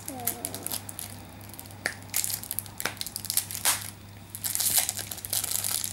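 Small clear plastic packet crinkling and crackling in the hands as it is opened to get a little hair clip out. The crackles come irregularly and are busiest in the second half.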